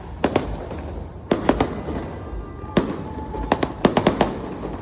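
Fireworks display: about a dozen sharp bangs from bursting shells over a constant rumble. They come in a pair just after the start, a cluster of three about a second and a half in, one near three seconds, and a rapid run of bangs near the end.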